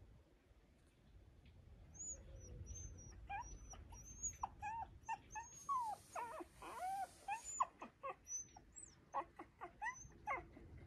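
A small dog whimpering: a run of short, high whines that rise and fall in pitch, starting about two seconds in and coming in quick succession until near the end, with a brief hiss in the middle.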